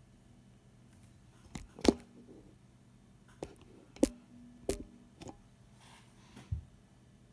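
Several sharp knocks and clicks at irregular intervals, a few of them followed by a brief low ring.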